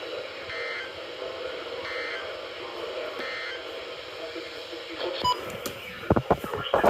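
NOAA weather radio static hiss with three short, faint data-tone bursts about a second apart: the SAME end-of-message code closing the alert just read. Near the end come a brief tone and a run of sharp clicks and crackles.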